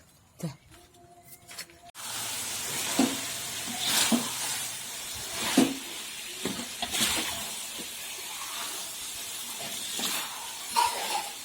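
Food sizzling in a frying pan, starting suddenly about two seconds in, with several louder strokes like a spatula stirring.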